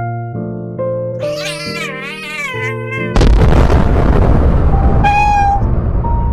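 Cat meowing over background music with sustained notes: a long meow that wavers in pitch about a second in, then a sudden loud rushing noise from about three seconds in, with a shorter meow over it near the end.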